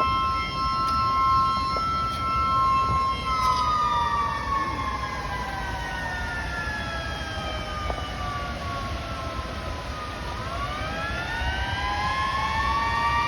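A siren sounding two notes together, held steady for about three seconds, then sliding slowly down in pitch for about seven seconds and rising again near the end, like a motor-driven siren winding down and spinning back up. A steady low rumble sits underneath.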